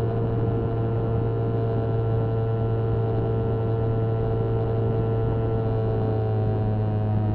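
Motorcycle engine running at a steady speed, picked up by a dashcam mounted on the bike, with a strong low hum. Its pitch dips slightly near the end.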